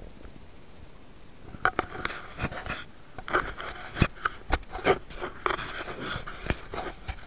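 Leaves and brush rustling and crackling in irregular bursts as someone pushes through dense vegetation, starting about one and a half seconds in.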